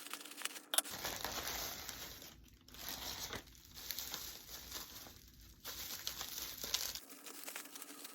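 A package's wrapping being torn open and crinkled by hand, in spells of rustling and tearing broken by a few short pauses, with a sharp crackle about a second in.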